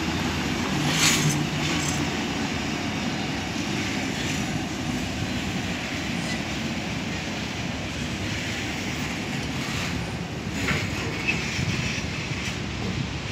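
Empty freight train of flatcars rolling past, with a steady rumble of wheels on the rails. A couple of brief sharper noises stand out, about a second in and again near the end.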